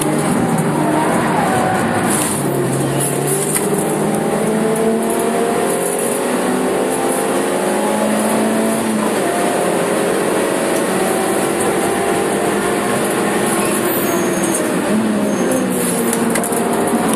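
Suzuki Swift Sport's four-cylinder engine driven hard on track, heard from inside the stripped, roll-caged cabin. Its pitch climbs and drops back several times with throttle and gear changes, over steady road and wind noise.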